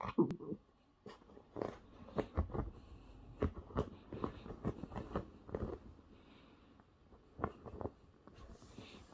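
Toy terrier scratching and digging at a blanket with its paws: quick, irregular scratching and rustling of the fabric.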